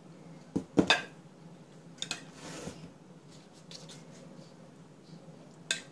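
Kitchen handling sounds on a marble worktop while pastry is worked by hand: a quick cluster of sharp knocks about half a second to a second in, then a few lighter taps, a brief soft rustle and a last tap near the end, over a faint steady low hum.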